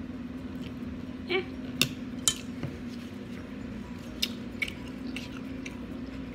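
A metal fork clinking and scraping against a dinner plate while scooping rice, a handful of sharp clinks spread over the first five seconds, over a steady low hum.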